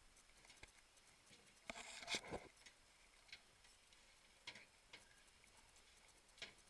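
Quiet stretch of faint clicks and knocks, with a louder short clatter about two seconds in and a couple of softer knocks later.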